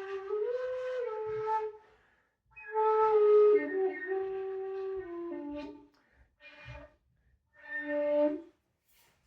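Freshly 3D-printed and assembled shakuhachi, its bore not yet sanded or oiled, played in short phrases of held notes that step between pitches, with pauses between phrases. The last note stops about a second before the end, followed by a couple of faint clicks.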